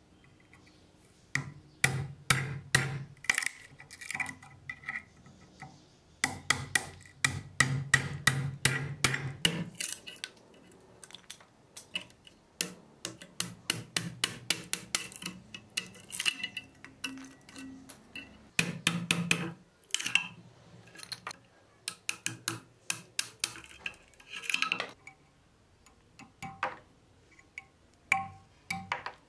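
Steel screwdriver chipping and prying rotten wooden handle scales off a rusty cleaver's tang held in a bench vise: bursts of rapid sharp clicks and knocks, metal against wood and steel, with short pauses between.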